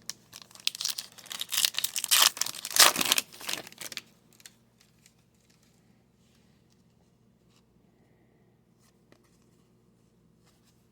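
Foil wrapper of a hockey card pack being torn open and crinkled for about four seconds, then only a few faint ticks.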